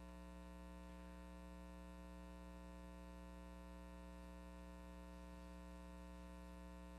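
Near silence apart from a steady electrical mains hum.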